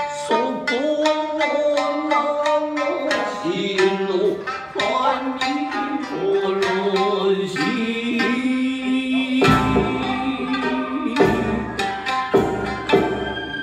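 Nagauta record played back through a large Altec horn loudspeaker: a male singer draws out long, wavering held notes over plucked shamisen. About two-thirds of the way in the voice stops and the shamisen carries on alone in a quicker run of sharp plucked notes.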